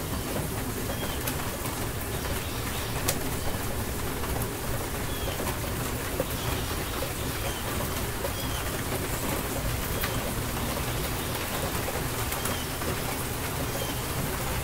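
Steady rain falling, with a few sharp drop hits. A bird chirps briefly every second or two.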